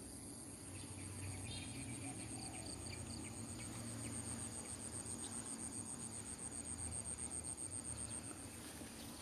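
Insect chirping in a high, fast, evenly pulsed trill that grows slightly louder and stops shortly before the end, typical of a cricket in the field at dusk.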